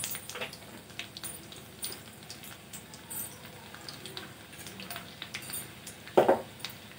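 Hot oil sizzling in a kadhai with whole spices and freshly added chopped garlic for a tadka, with small crackles and spits. A brief louder knock comes about six seconds in.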